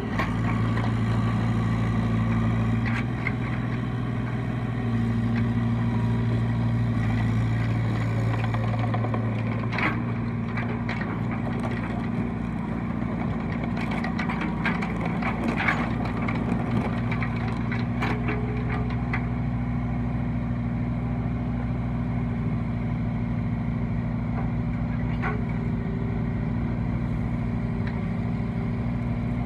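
Bobcat 328 mini excavator's diesel engine running steadily as the machine tracks and works its boom. The engine is louder in the first few seconds and again from about five to nine seconds in, with scattered clanks and rattles between about ten and nineteen seconds in.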